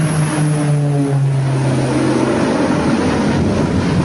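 Twin-engine propeller airplane passing low and close, its engine and propeller drone dropping in pitch as it goes by. The tone fades out about halfway through and gives way to a rough, steady rushing noise.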